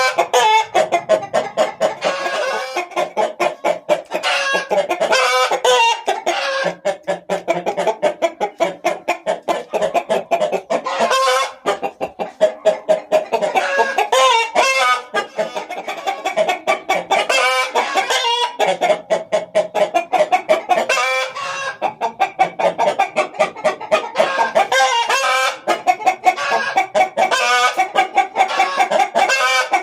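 Chickens clucking fast and continuously, several birds at once, with a few longer drawn-out calls spread through.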